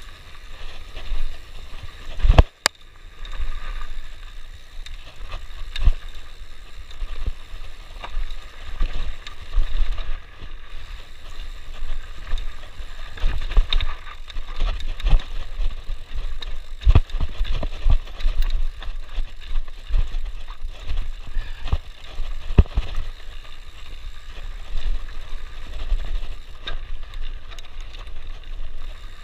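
Mountain bike rolling fast down a dirt and rocky singletrack: steady tyre and drivetrain rattle with wind rumble on the microphone, broken by frequent sharp knocks as the bike hits rocks and bumps. The loudest knock comes about two and a half seconds in.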